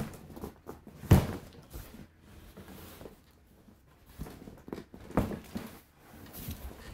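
Handling sounds: several knocks and thunks with some rustling in between, the loudest knock about a second in and another a little after five seconds.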